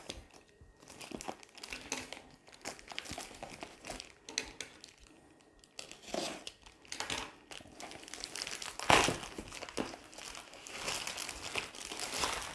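Plastic mailer bag crinkling and tearing as hands open it and pull out a plastic-wrapped package, in irregular rustles with one louder crinkle about nine seconds in.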